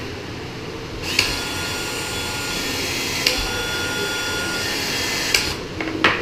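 Small handheld power tool's electric motor running steadily for about four and a half seconds with a constant whine, starting about a second in and stopping near the end. Sharp clicks sound as it starts, once midway, and as it stops, with one more click just after.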